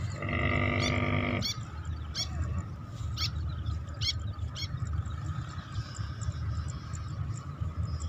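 Wind buffeting the microphone, with a steady honk of about a second near the start and several short, high chirps of small birds over the next few seconds.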